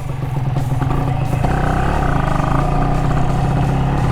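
Honda LS125R's single-cylinder four-stroke engine running under way, a steady hum that picks up a little about a second in.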